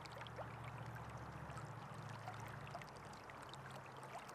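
Creek water flowing in an even, faint rush, with small ticks and splashes scattered through it and a faint low hum underneath.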